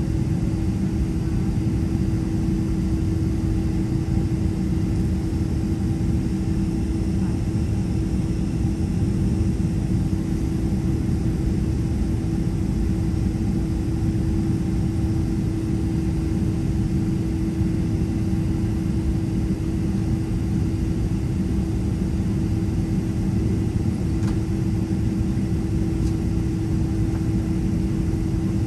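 Inside the cabin of a Boeing 767-300ER holding still on the taxiway: its turbofan engines idling together with the cabin air, a steady low rumble with a constant hum.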